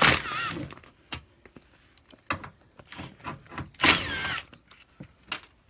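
Screwdriver backing screws out of a sheet-metal air-handler access panel: two short metallic squeals, one at the start and one about four seconds in, with scattered clicks and taps of tool on metal between them.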